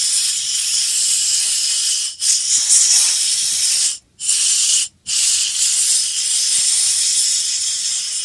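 Compressed-air blow gun hissing at high airline pressure as it blows out a small carburettor part. The blast dips briefly about two seconds in and cuts out for a moment twice, around four and five seconds in, as the trigger is let go.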